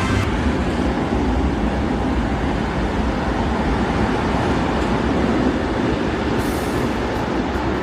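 A train running on its track: steady, even running noise with a brief hiss near the end.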